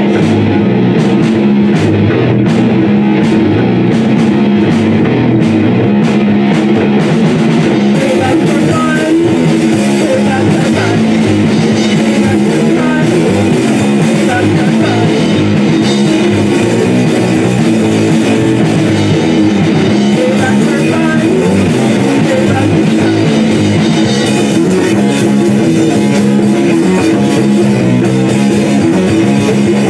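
Rock band playing live, guitar and drum kit, in an instrumental stretch without vocals. Sharp regular drum ticks carry the beat for the first eight seconds, then a fuller cymbal wash comes in.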